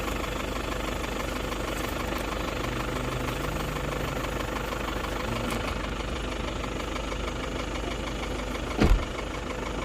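An engine running steadily with a low rumble, and one short thump near the end.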